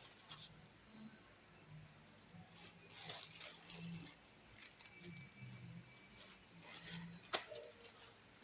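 Faint handling noises, rustles and clicks, with one sharp click about seven seconds in, over a faint low murmur.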